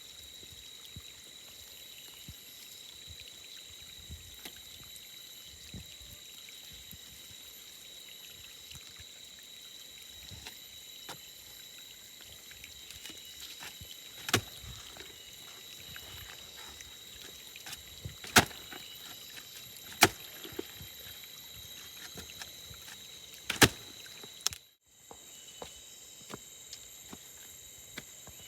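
Steady high-pitched insect drone of tropical forest, with four loud, sharp knocks spread over the second half. The sound drops out briefly near the end.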